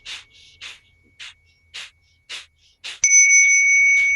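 Quick, forceful breaths in and out, about two a second, as in a fast breathing exercise. About three seconds in, a bell is struck and rings on with a steady high tone.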